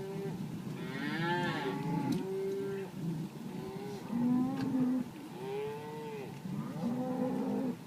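Cattle mooing: a herd calling over and over, about seven long arching moos, some overlapping one another.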